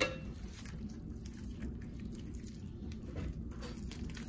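A hand mixing wet bread dough in a well of flour, with faint, irregular soft strokes as water is worked into the flour.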